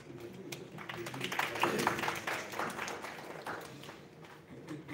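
A small audience clapping: scattered hand claps pick up about a second in, peak, and die away by about four seconds.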